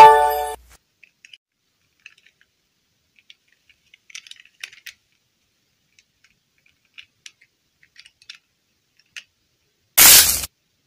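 Faint scattered clicks and taps of small plastic dolls and a modelling-clay head being handled. A short loud pitched tone sounds at the very start, and a loud half-second burst of noise comes near the end.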